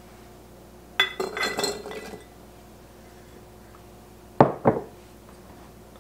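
A stainless steel measuring cup clinking against glass mason jars as diced onion is tipped in, a quick cluster of ringing clinks about a second in. A little after four seconds come two sharp knocks close together.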